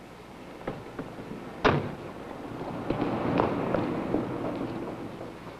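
A car door slams shut about a second and a half in, after a couple of fainter clicks, followed by a few seconds of low, muffled noise with faint knocks.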